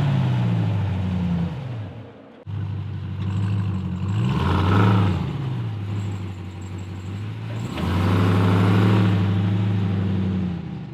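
Supercharged 6.2-litre V8 of a 2021 Ram 1500 TRX, heard through its exhaust. The revs fall away after a rev, and the sound cuts off briefly about two seconds in. It then idles with a quick rev blip about five seconds in, and runs louder as the truck pulls away near the end.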